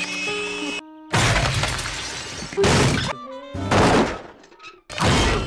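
A run of cartoon sound effects: about four sudden shattering crashes, each fading off, with short musical tones before and between them.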